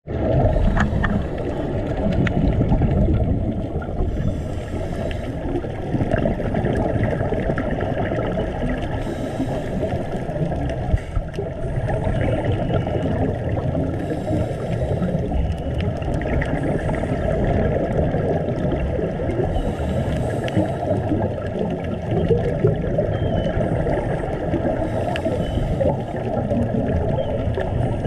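Underwater sound picked up through a camera housing: a steady muffled rushing, with a burst of bubbling hiss every four or five seconds, typical of a scuba diver's regulator exhaling.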